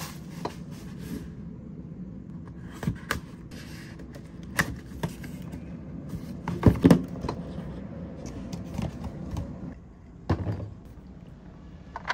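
Handling and opening a small cardboard box: scattered taps, knocks and paper-flap scrapes, the loudest cluster about seven seconds in, over a faint steady hum.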